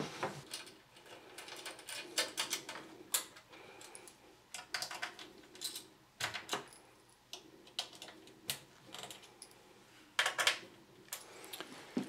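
Hand screwdriver driving screws into the power supply through the back of a metal computer case: irregular small clicks, ticks and scrapes of metal on metal as the screws turn, with a quick cluster near the end.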